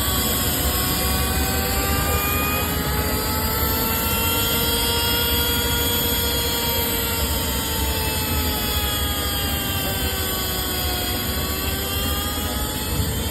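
CNC glass sandblasting machine running: a steady rush of noise under a motor whine that slowly rises and falls in pitch, dipping around the middle and again near the end.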